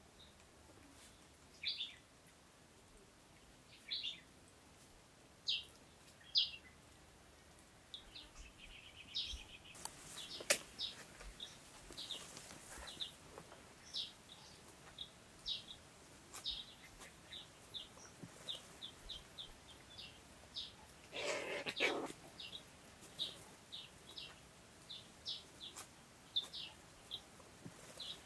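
Small birds chirping, short high-pitched calls that come more and more often, with a sharp click about ten seconds in and one louder, lower call lasting about a second around three-quarters of the way through.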